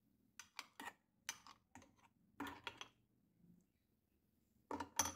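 Metal spoon clicking and scraping against a glass blender jar while stirring thick, freshly blended mayonnaise: faint short clicks in small clusters, the loudest near the end.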